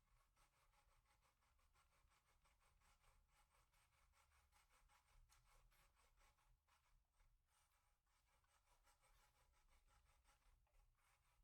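Near silence, with faint continuous scratching or rubbing.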